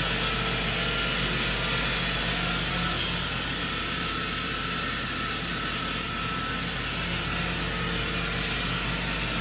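Spindle of a 1999 Fadal VMC5020A vertical machining center spinning clockwise at a commanded 5000 rpm, a steady running sound with a few steady high tones over a low machine hum. It eases slightly in level about three seconds in.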